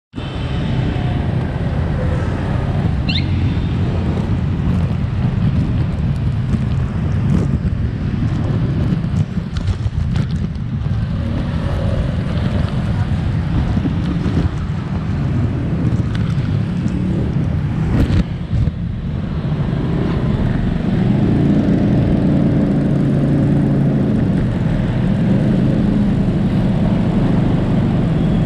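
Motorbike engines and street traffic heard from a motorbike that first waits, then rides off. The engine and road noise grow a little louder about two-thirds of the way in.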